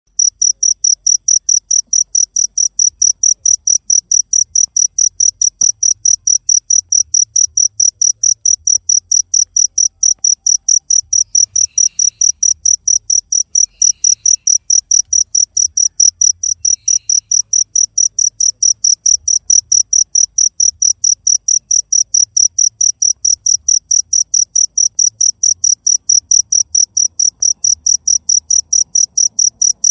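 Cricket chirping steadily in a fast, even rhythm, about four high-pitched chirps a second.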